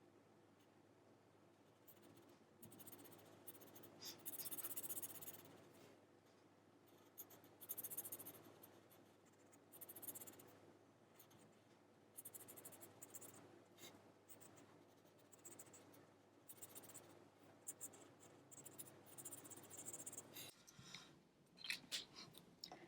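Faint scratchy strokes of a black marker colouring in on paper, coming in short spells every second or two.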